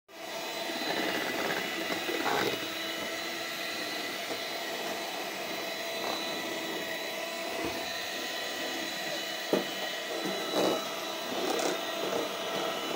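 Electric hand mixer on its stand running steadily, its beaters whirring through batter in a stainless steel bowl, with a few knocks now and then.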